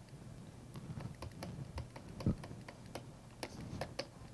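Stylus tapping and scratching on a tablet screen during handwriting: irregular light clicks, a few to several a second, over a faint low hum.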